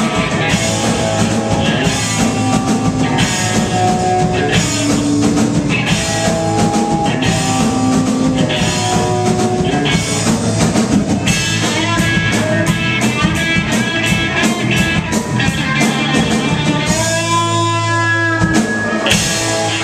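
Live rock band playing, with electric guitar and drum kit, ending on a long held chord near the end.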